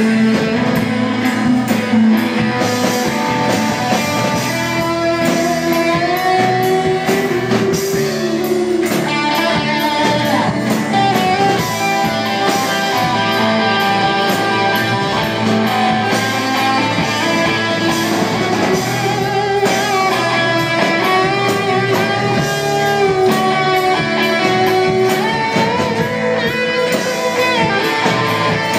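Live rock band playing: electric and acoustic guitars strumming over bass guitar and drums.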